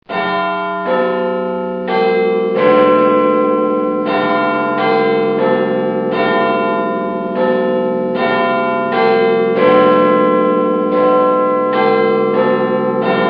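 Bells chiming a slow run of notes at an uneven pace of roughly one stroke a second, each note ringing on and overlapping the next.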